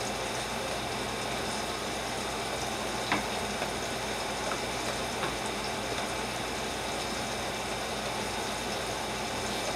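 Fork scraping and clicking in a plastic tub as boiled sweet potato is crushed: a few light clicks, the sharpest about three seconds in, over a steady hiss of kitchen noise.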